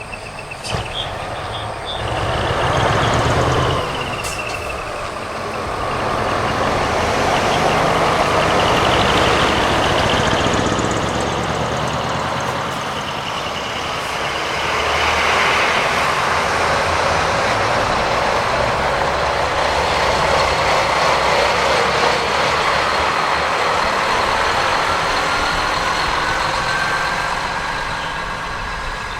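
Heavy diesel trucks with maniwari (straight-through) exhausts running loudly as they drive in, the engine noise swelling and easing in long waves with a rising pitch near the end. A brief sharp sound comes about a second in.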